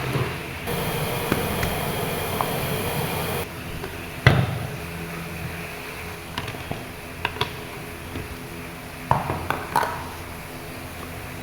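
Kitchen clatter: a handful of sharp knocks and clinks of utensils and cookware, the loudest about four seconds in and a few more close together near the end, over a steady hiss that stops after about three seconds.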